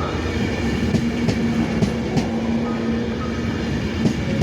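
Class 390 Pendolino electric train running into the platform, with a steady hum and irregular clicks as its wheels pass over rail joints.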